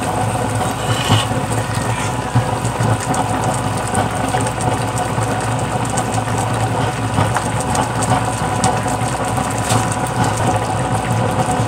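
Chicken in coconut milk boiling hard in a wide aluminium wok, over a steady low hum like a motor or engine running, with a few light clicks.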